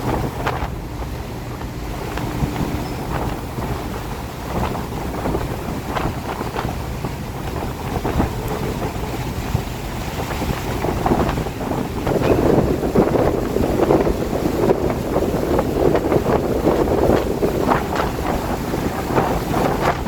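Wind and rain in a storm, the wind rumbling and buffeting the microphone in gusts. It grows stronger about halfway through.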